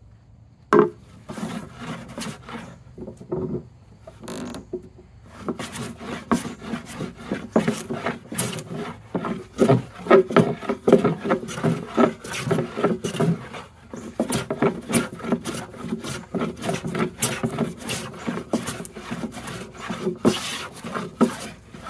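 No. 5 jack bench plane shaving a wooden board, in repeated scraping strokes. A single sharp knock about a second in.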